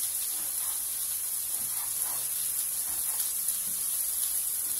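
Chicken and halved tomatoes sizzling steadily in a frying pan on a gas hob, with a few light knife cuts on a cutting board as sun-dried tomatoes are chopped.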